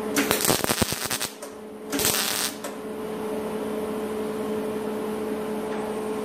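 Welder tack-welding a corner of thin sheet-metal body panel: the arc crackles for about a second, then a shorter burst follows about a second later, over a steady hum.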